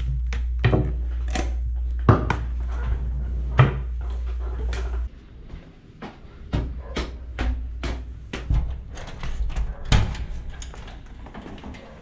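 Clicks and knocks of objects being handled over a low steady hum, which cuts off suddenly about five seconds in. Then a run of light knocks and taps, about two a second, footsteps on tiled stairs.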